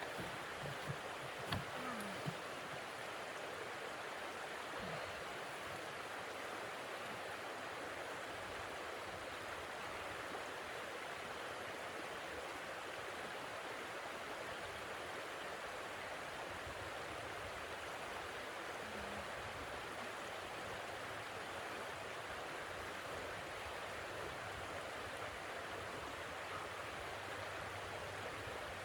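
Blizzard wind blowing steadily as an even rushing noise, with a few light knocks in the first couple of seconds.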